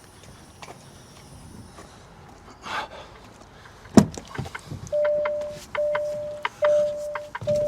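A sharp knock about four seconds in, then a steady single-pitch beep, each under a second long, repeating about once a second.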